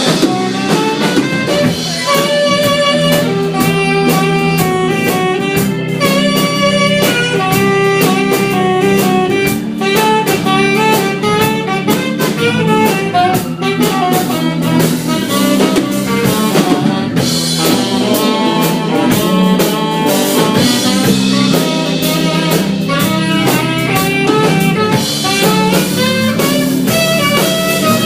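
Instrumental break in a rock song: the band plays a melodic lead line over drums and bass, with no singing.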